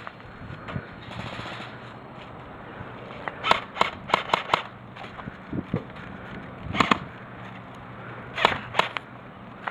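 Airsoft guns firing single shots, each a sharp crack: a quick string of about five about a third of the way in, then a single shot, then two more near the end.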